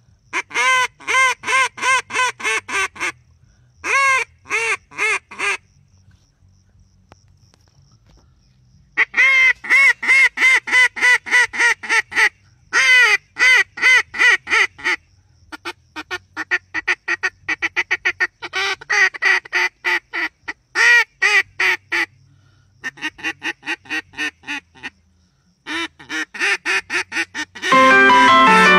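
A hand-blown duck call sounding runs of rapid quacks, about four a second, with short pauses between the runs. A loud guitar music track cuts in near the end.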